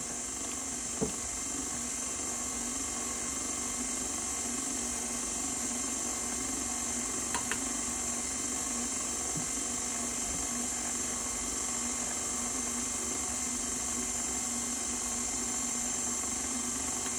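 KitchenAid Artisan stand mixer running steadily on low speed, its dough hook working flour into bread dough, with a steady high-pitched motor whine. A light knock about a second in and a couple of small clicks near the middle.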